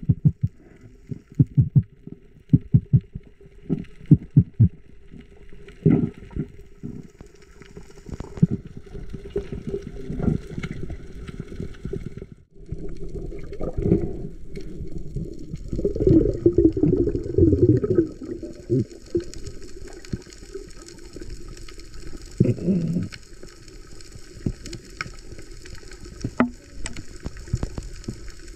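Water sloshing and bubbling as heard by a camera underwater, with many short clicks and knocks through the first half. The loudest stretch is a gurgling rush of bubbles about sixteen seconds in, with a shorter one near twenty-three seconds.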